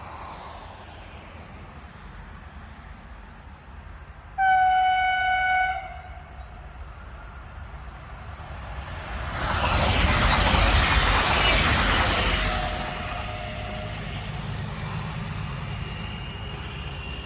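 An electric multiple-unit train's Kockums Tyfon air horn sounds one high single-note blast of about a second and a half. A few seconds later the train passes with a rushing rumble that swells and fades, and a fainter, lower horn-like tone comes briefly near the end of the pass.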